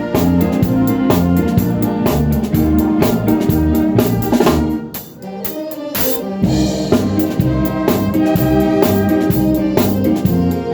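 Live band music: a keyboard in an organ voice carries the melody over a drum kit's steady beat. About five seconds in the band briefly drops away, then comes back in with a cymbal crash and the beat carries on.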